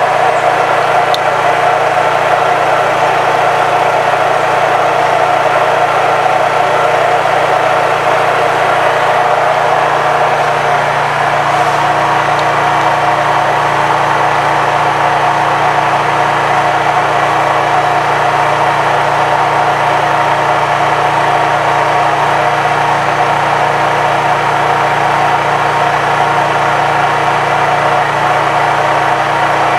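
Honda EU3000is inverter generator's single-cylinder engine running steadily, with its engine note shifting slightly about eleven seconds in as the inverter adjusts its speed.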